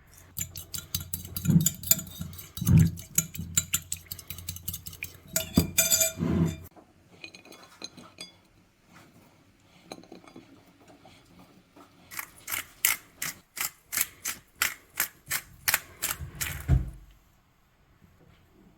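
Cutlery and dishes clinking and knocking in a run of sharp clicks, then a steady string of clicks at about two or three a second, ending about two seconds before the close.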